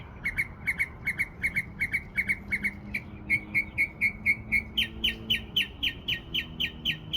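A songbird singing a fast series of repeated clear whistled notes, about four a second. The first notes slur downward, then they turn steady, and about five seconds in they jump higher.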